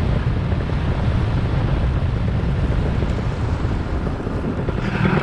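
Paramotor in low flight: wind rushing over the microphone, with the low rumble of its Vittorazi Moster two-stroke engine running underneath.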